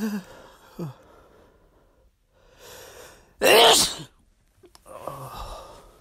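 A person sneezing: a drawn-in breath, then one loud sneeze about three and a half seconds in, and a softer breathy sound after it.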